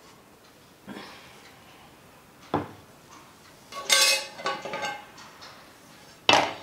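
Metal cookware knocking and clattering as a dosa pan is handled and set on a gas stove. A sharp click comes about two and a half seconds in, then a cluster of clanks with some ringing, and the loudest knock near the end.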